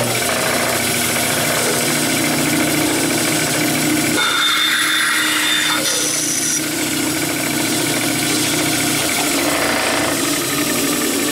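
Band saw running steadily. About four seconds in, the blade cuts through a wooden dowel at a 45-degree angle, adding a higher whine for a couple of seconds.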